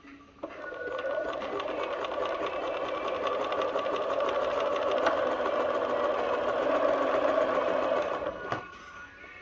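Bernina 1130 sewing machine running steadily at speed, its needle striking in a fast even rhythm while sewing a zigzag stitch. It starts about half a second in and stops about a second before the end.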